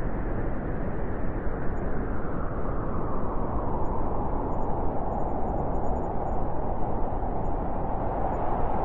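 Blizzard wind blowing steadily in a dense, low rush, gusting up slightly after a few seconds.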